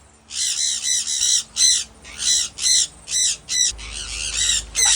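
Parrots squawking, a run of harsh calls one after another at about two a second.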